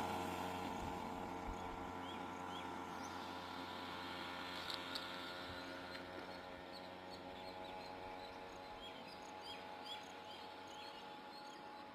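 Faint, short rising bird chirps, a few about two seconds in and more in a quick series near the end, over a steady low hum that slowly fades.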